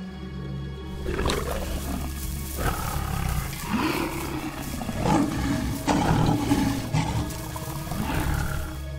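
A tiger roaring again and again, each roar rising and falling in pitch, over steady background music.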